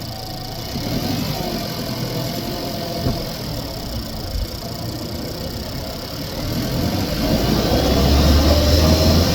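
Renault Megane 1.2 TCe turbocharged four-cylinder petrol engine running while driving, heard from inside the engine bay. It grows louder about seven seconds in, with a strong low hum coming in, as the car pulls under throttle.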